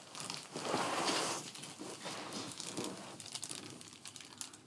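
Crinkling and rustling of handled material, loudest about a second in, then fading into scattered small clicks and rustles.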